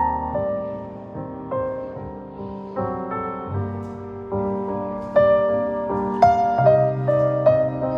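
Solo piano music at an unhurried pace, single notes and chords struck and left to ring over held bass notes.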